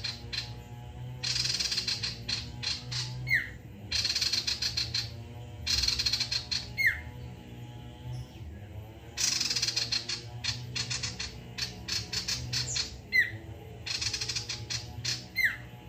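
Caged male common iora singing vigorously: bursts of rapid, dense chattering notes about a second long, alternating with single sharp downward-sliding whistles, about four times. A steady low hum runs underneath.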